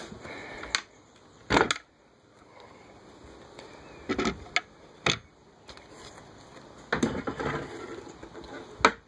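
Sailboat companionway hatch being opened by hand: a series of separate knocks and clunks, the loudest about a second and a half in, with a cluster of smaller knocks around seven seconds.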